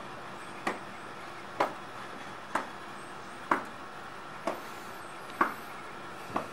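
A sharp knock repeating at an even pace about once a second, over a faint steady hiss.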